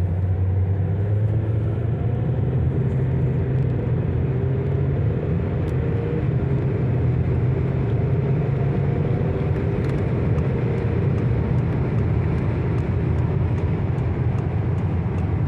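Citroën C6's 2.7 V6 HDi diesel engine running steadily, a continuous low drone with a slight waver in pitch.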